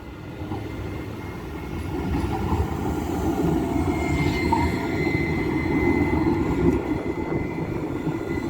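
Tram running on street rails, its rumble growing louder over the first few seconds, with a thin, steady wheel squeal setting in about halfway through.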